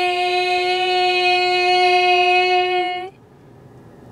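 A female voice holding one long sung note, steady in pitch, that cuts off about three seconds in.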